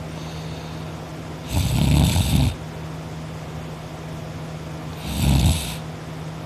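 A sleeping person snoring: two loud snores about three and a half seconds apart, each lasting about a second.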